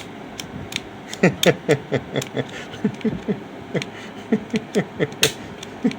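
SCCY CPX-2 pistol being dry-fired with light clicks from its trigger and action, and the gun fails to work because the slide sits too far forward. Mixed in is a run of short squeaky chirps, each falling in pitch, several a second.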